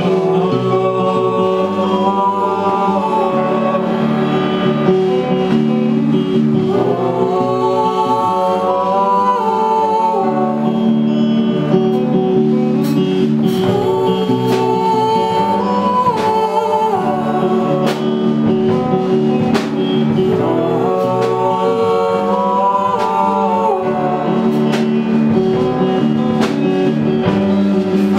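A live rock band playing a song: a singer's sung phrases over electric guitars, piano and drums, with held notes underneath.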